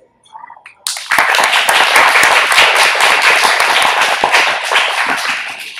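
Audience applause, starting about a second in and dying away near the end.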